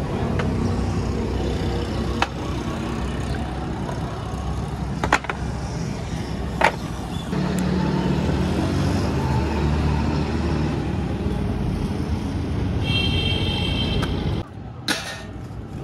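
Street traffic: motor vehicle engines running and passing, with a few sharp clicks and a brief high tone near the end.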